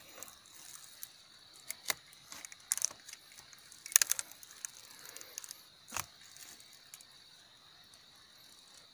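Pruning shears snipping and crunching through plant roots in soil, a few scattered sharp clicks, the loudest about four seconds in.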